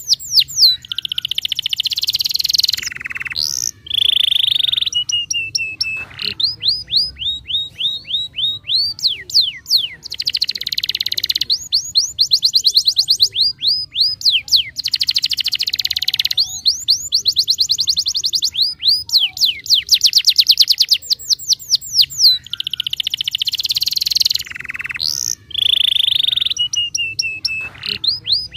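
Domestic canary singing a long, nearly unbroken song: fast trills of rapidly repeated sweeping notes alternating with dense buzzy phrases, high-pitched, with only brief pauses. It is a canary in full, vigorous song (gacor).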